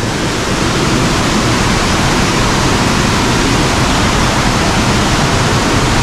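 Stream cascading over boulders: a steady, loud rush of water.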